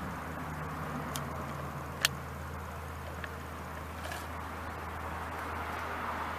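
Axial SCX10 RC rock crawler's electric motor and gear drivetrain running at low throttle with a steady hum as it crawls over a rock. There is a sharp click about two seconds in and a few faint ticks.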